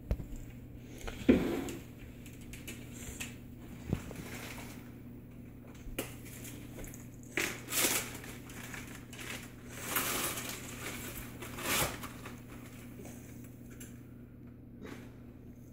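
Several short scraping, crunching noises from baking work at a kitchen counter, the loudest about a second in, over a steady low hum.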